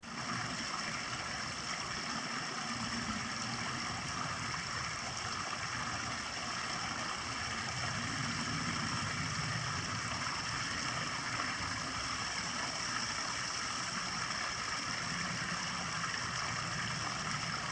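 Water running steadily over a backyard rock waterfall and splashing down, in a constant rushing wash.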